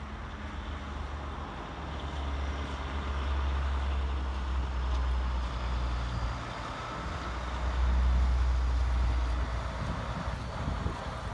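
Heavy truck's diesel engine idling steadily with a deep low hum, swelling louder twice.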